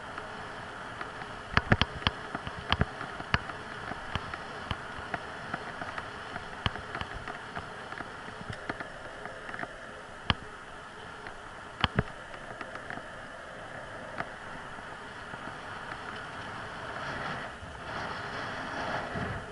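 Bicycle rolling along an asphalt path: steady rolling and wind noise with irregular sharp clicks and knocks from the bike and its camera mount over the bumps, loudest about two seconds in and again around twelve seconds in. The noise swells briefly near the end.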